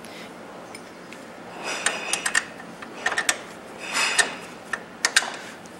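Metal clicking and rattling of bolts and nuts being fitted by hand into a car's lower strut mount, in four short bursts of rapid clicks.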